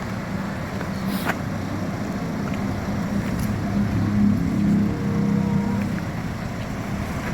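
A motor vehicle's engine running steadily, swelling a little around the middle.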